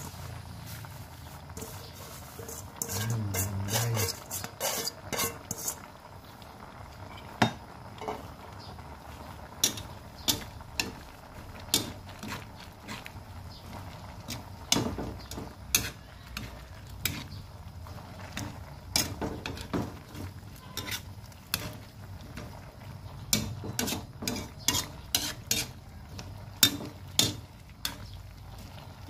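Metal spoon stirring pumpkin and moringa leaves in coconut milk in a metal pot, with irregular clinks and scrapes against the pot's side over the low bubbling of the already-boiling liquid. The clattering is densest about three to six seconds in.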